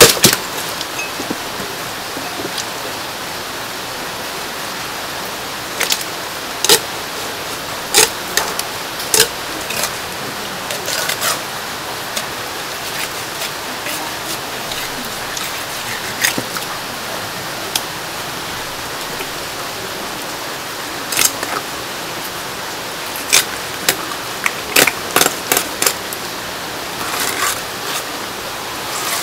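Cleaver cutting along the backbone of a large grass carp on a wooden chopping board, giving sharp knocks and scrapes of the blade on bone and board at irregular moments, more often near the end. Under it runs a steady hiss.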